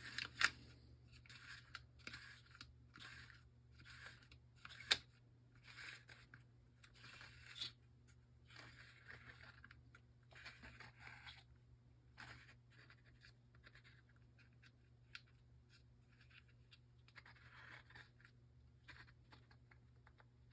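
Plastic recoil starter pulley of a Honda GCV160 being wound by hand against its rewind spring, a short faint scrape with each turn, about one a second at first, then fewer and more scattered. A couple of sharp clicks, the loudest near the middle, over a steady low hum.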